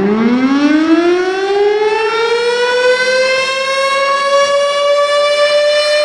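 Tornado warning siren winding up: a loud wail that climbs steeply in pitch over the first couple of seconds, then levels off into a steady high tone.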